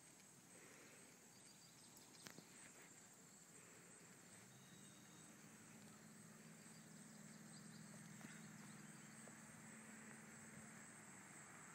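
Near silence: faint outdoor ambience, with a faint low hum coming in about halfway through and a single brief click about two seconds in.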